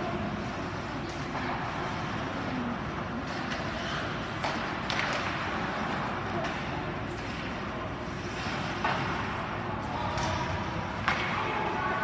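Ice hockey play in a rink: a steady wash of skating and arena noise with faint voices, broken by a few sharp clacks of sticks and puck, the loudest about eleven seconds in.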